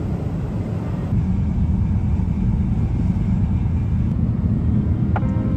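Steady low rumble on the open deck of a ferry, the ship's engines and wind. Music starts with a few notes near the end.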